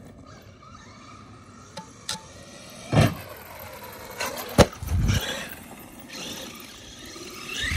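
Traxxas Maxx RC monster truck taking a jump: a thump about three seconds in as it launches, then a sharp crack and a heavier thud as it lands and bounces, with its electric motor whining faintly in between.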